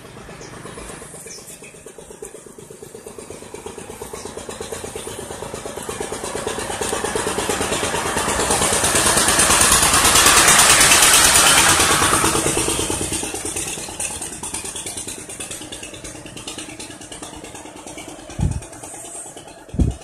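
A motor vehicle engine passing by: it grows louder, peaks about ten seconds in, then fades away. Two short thumps come near the end.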